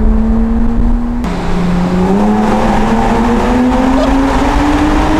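Porsche Cayman S engine under throttle, heard from inside the cabin, its note climbing as the car accelerates. About a second in the sound changes abruptly, and the engine note then rises steadily in pitch through the rest.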